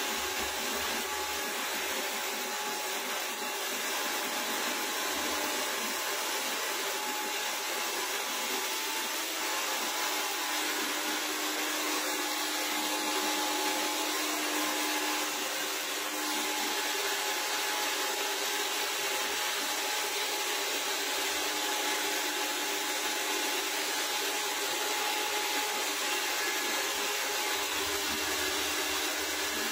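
Handheld hair dryer running steadily, blowing a constant rush of air with a faint motor whine, as it dries and styles a freshly fitted hair piece in the finishing stage.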